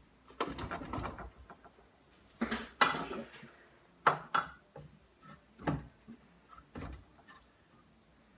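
Metal tools and small-engine parts clinking and clattering as the engine is worked on, in a string of irregular knocks with two short rattling stretches.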